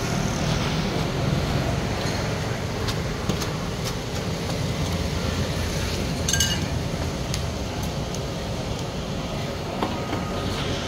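Steady street noise with the rumble of passing traffic, and a few light clinks, one brighter clink about six seconds in.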